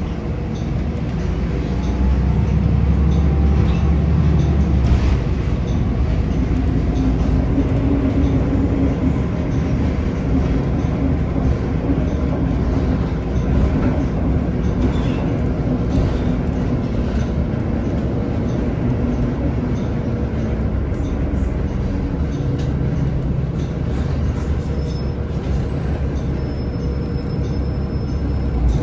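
Inside a moving city bus: the engine and drivetrain run with a steady low drone and a humming tone through the middle stretch, over light rattles of the cabin. The sound gets louder about two seconds in.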